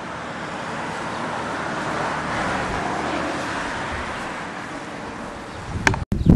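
A car going past: a steady rush of road noise that swells two to three seconds in and fades away, with a sharp click near the end.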